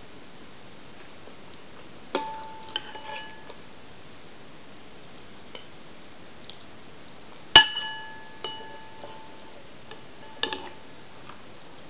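Metal spoon clinking against a porcelain bowl while scooping up cereal: a handful of sharp clinks at uneven intervals, each ringing briefly, the loudest about seven and a half seconds in.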